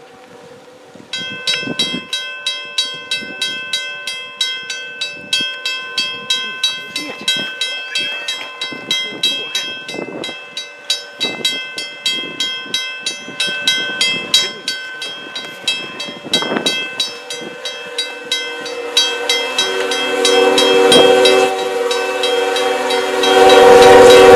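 Level-crossing warning bell ringing, about two strikes a second. About three-quarters of the way through, a CN locomotive's horn sounds a steady multi-note chord that grows loud as the snow-plowing locomotive reaches the crossing, with a rushing hiss of thrown snow over it.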